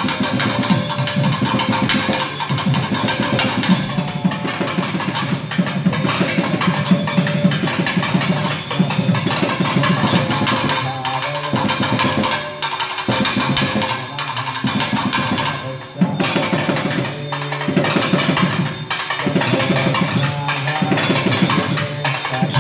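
Two thavils, South Indian barrel drums, played together in fast dense strokes: sharp stick and capped-finger cracks over the deep open tone of the bass head. The rolling patterns break off briefly a few times about halfway through before picking up again.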